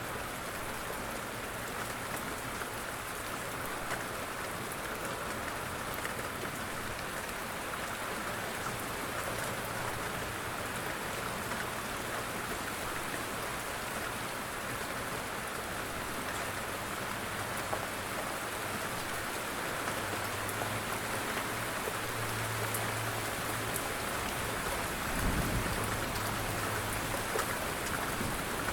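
Steady rain falling on surfaces, an even hiss of drops, with a low rumble of thunder in the later part that swells about 25 seconds in.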